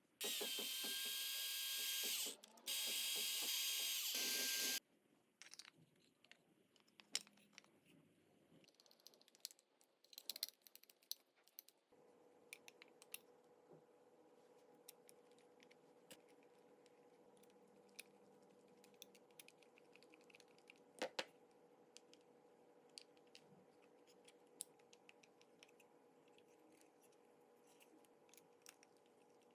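A power tool runs in two loud bursts of about two seconds each, with a short break between them, giving a noisy whine. Scattered clicks and taps of handled parts follow, then a faint steady hum.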